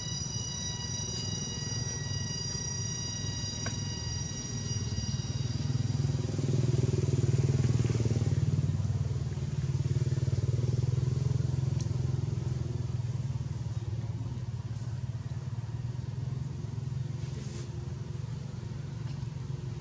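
A motor vehicle engine running close by, growing louder through the middle and then easing off as it passes. Over the first few seconds a steady high-pitched whine sounds with it.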